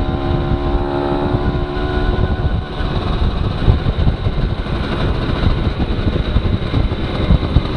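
Aprilia Classic 50 moped's 50 cc two-stroke engine running at a steady speed on the road, mixed with heavy wind rumble on the microphone. The engine's steady note is clear for the first two seconds or so, then sinks under the wind noise.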